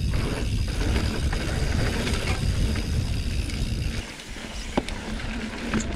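Mountain bike rolling fast down dirt singletrack: tyre rumble and wind buffeting the handlebar camera's microphone. About four seconds in the rumble drops away, leaving a few sharp clicks and rattles from the bike.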